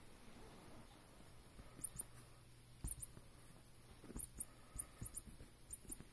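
Squeaking toy mouse being batted and handled: short, very high squeaks, mostly in quick pairs, repeated every second or so from about two seconds in, with soft knocks as it is moved.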